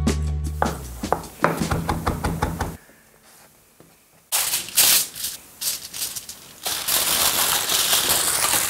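Light knocks and rustling as a cooked roast is handled and rolled on a wooden chopping board, then, from about two-thirds of the way through, aluminium foil crinkling and crumpling as it is wrapped around the meat.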